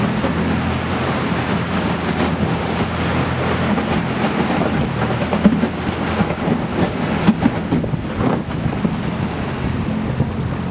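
Boat motor running steadily while the hull pushes through thin broken ice, with irregular cracks and knocks of ice floes striking the metal hull, most of them in the middle part.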